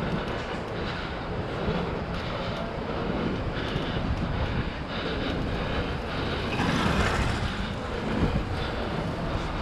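Steady wind rush on the microphone and tyre roar on asphalt from a fixed-gear bicycle riding down a city street, with a brief swell about two-thirds of the way through.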